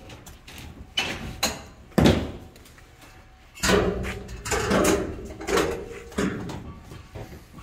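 Knocks and clatter of metal engine parts being handled inside a steel shipping container loaded with used engines: a few sharp knocks about one to two seconds in, then a louder stretch of clatter from the middle on.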